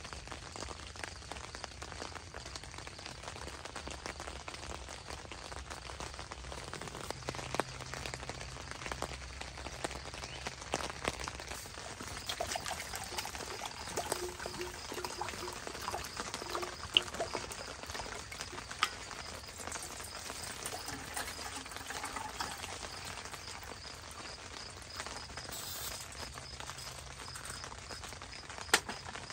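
Water pouring from an insulated jug into a stainless steel cup, a steady trickle in the middle of the stretch, over the patter of light rain. A few sharp clicks and taps come near the end.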